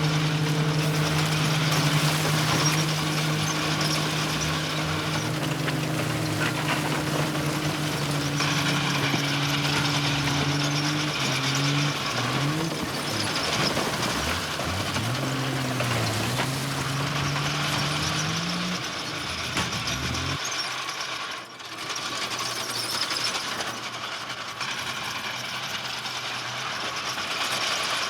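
Heavy diesel engine of earthmoving machinery running at a steady pitch, then revving up and down several times before it cuts off abruptly about twenty seconds in. A steady higher-pitched mechanical noise carries on after it.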